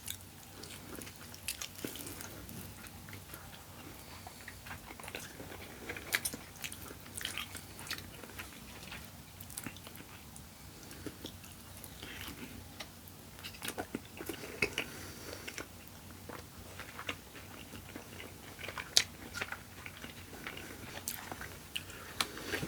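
A person chewing and biting into chicken wings close to the microphone: irregular wet smacks and crisp little clicks of eating.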